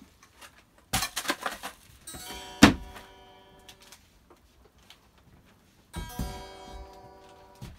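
Electric guitar strummed: one chord rings out about two seconds in and fades, and a second rings from about six seconds in. A quick run of knocks comes just before the first chord, and a loud thump, the loudest sound, lands as it starts.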